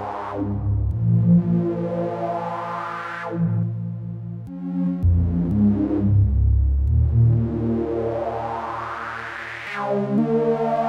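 Homemade analogue synthesizer playing sustained chords, with all three oscillators on pulse-width-modulated waves, each with its own LFO speed, giving a thick, shifting pad. The tone brightens and dulls in sweeps as the chords change. Near the end the bass drops away as the second filter is switched to high-pass.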